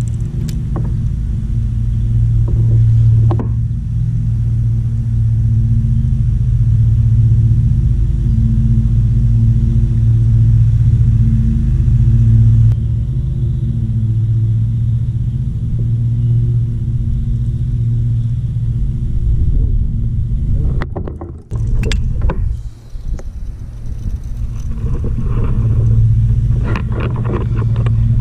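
Steady low hum at one constant pitch, like a small motor running. It breaks off briefly about two-thirds of the way through. A few light knocks sound near the start and near the end.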